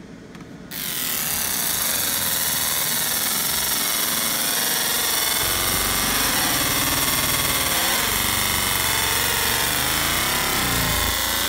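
Laser engraver marking a hatch-filled design into metal: a loud buzzing hiss that starts abruptly about a second in, with whining tones that bend up and down as the pattern is traced.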